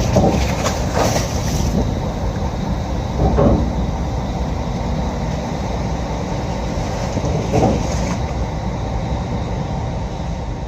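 Steady low rumble of a ferry under way, with a few brief louder swells, about a second in, at three and a half seconds and near eight seconds.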